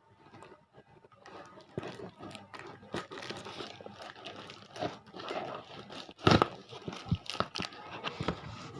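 Courier parcel packaging being crinkled and torn open by hand, a continuous crackling with sharp snaps, starting about a second in; the loudest rip comes about six seconds in.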